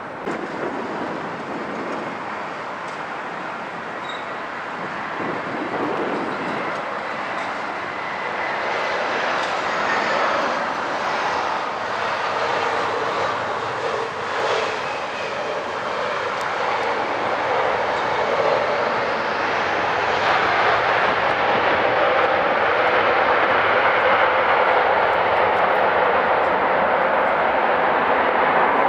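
Jet airliner engines running across the airfield, a steady rushing noise with a faint high whine in the first ten seconds, growing louder over the second half.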